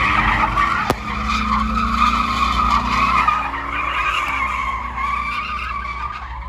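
A car's tyres squealing continuously under wheelspin, with its engine revving underneath; the screech eases off near the end.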